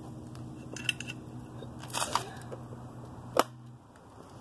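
Scattered clicks and knocks from hands working a 50cc dirt bike's handlebar and tank controls, with one loud sharp click about three seconds in. The engine is not running. A faint steady low hum sits underneath and stops shortly before the end.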